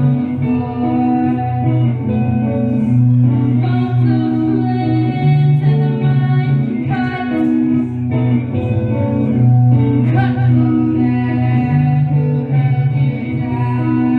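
Live dreamy post-punk-style song: a repeating guitar melody over held low notes, with a singing voice.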